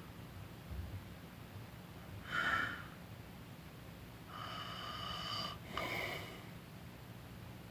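A person snoring while napping: a loud snorting inhale about two and a half seconds in, then a longer breath with a high, steady, whistle-like tone from about four seconds, ending in another short snort.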